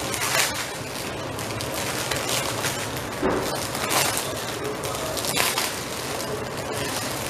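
Clear plastic wrap crinkling and crackling as hands crumple and pull it apart, with louder bursts about half a second in, around four seconds in and again about a second later.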